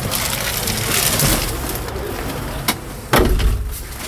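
Rustling and handling noise, with a click and then a heavy thump about three seconds in.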